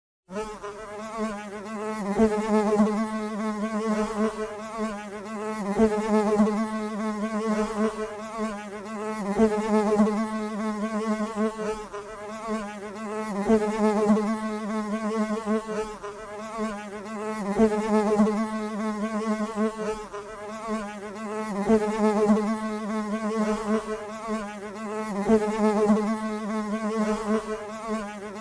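A bee buzzing steadily at a low hum, its wing drone wavering slightly and swelling louder and fading every few seconds, as if it circles close to the microphone and away again.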